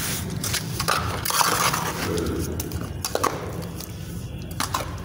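Handling sounds of masonry work: gritty scraping and crunching with a few light knocks and clinks, as a metal straightedge is set across the manhole's concrete rim among broken brick rubble.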